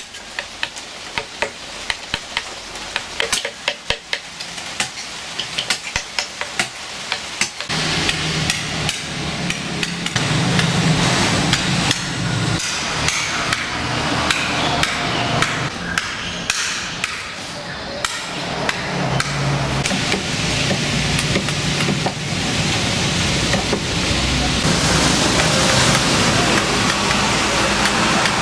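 Steel wood-carving chisel driven into wood by mallet blows: many quick, sharp taps, several a second. About eight seconds in, a steady noise with a low hum comes up beneath the tapping and stays.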